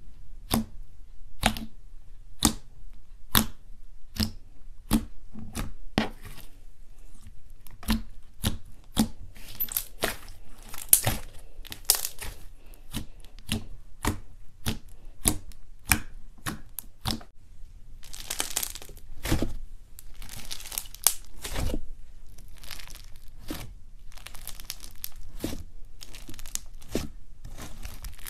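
Fingers poking and squeezing fluffy slime, making sharp wet pops and clicks as air pockets burst. At first there is about one pop a second, then the pops come closer together and turn into stretches of crackling in the second half.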